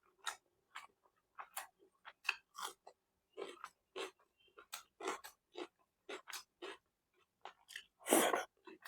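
A person chewing food close to the microphone: a run of short, irregular mouth clicks and smacks, about two or three a second, with a louder, longer sound about eight seconds in.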